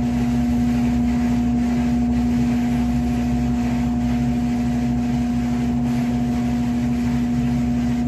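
Steady background hum holding one constant pitch, with a low rumble beneath it.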